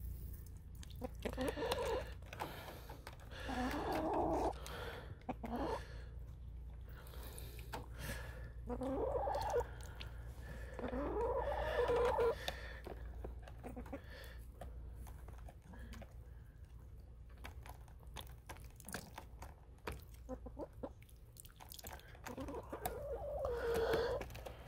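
Hens clucking in several bouts of drawn-out calls, with a long lull before a last call near the end. Faint light clicks run underneath as a metal screwdriver taps at frozen plastic horizontal chicken-nipple drinkers.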